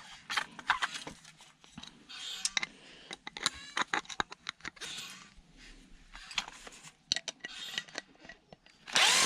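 Small metal clicks and clinks as screws and aluminium parts are handled and taken off a radio unit, with a short burst of a power drill spinning up near the end.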